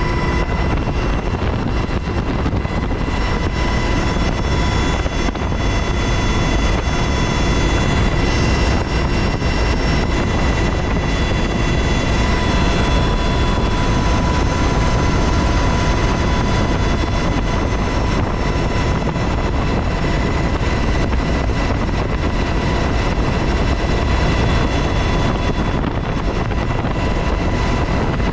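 UH-60 Black Hawk helicopter in cruise flight, heard from inside the cabin with the door open: steady rotor and twin-turboshaft noise with a constant high whine over a heavy rush of air.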